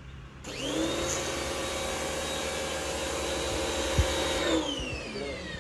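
Electric pressure washer motor switched on, whining up to speed and running steadily for about four seconds, with a sharp click near the end; then it is switched off and winds down with a falling whine.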